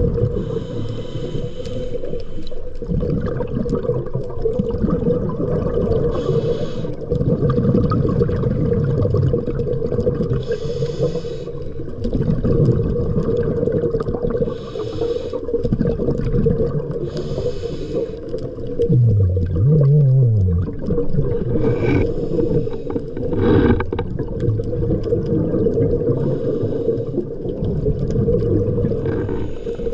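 Scuba diver breathing through a regulator underwater: a hiss on each inhale every few seconds over a continuous low rumble of exhaled bubbles and water.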